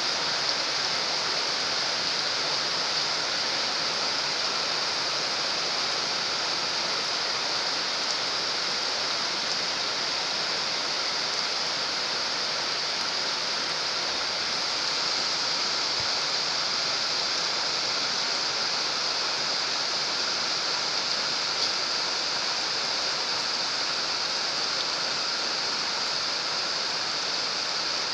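Steady rain falling on a pond's open water, a dense, even patter of drops on the surface.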